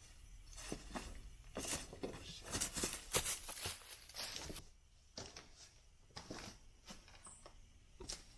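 Footsteps scuffing and crackling over dry leaves and loose debris, irregular and busiest in the first half, thinning out after about five seconds.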